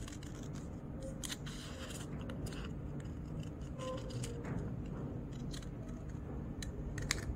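Scissors cutting through several layers of folded paper, a run of irregular crisp snips, over a steady low background hum.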